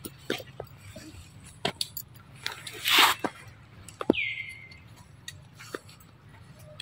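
Scattered wet clicks and smacks of a pig-tailed macaque eating mango, with a brief rushing noise about three seconds in and a short high call that slides down and then holds about four seconds in.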